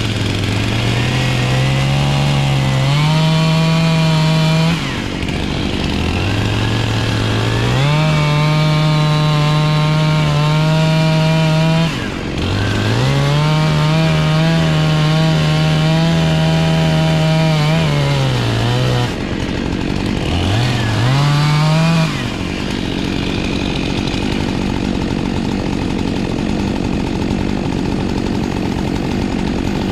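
Two-stroke chainsaw revved to full throttle four times, its pitch rising sharply into each bout and holding high while it cuts through a log, dipping briefly between bouts. After the fourth, shorter bout it drops back to a lower, steady run.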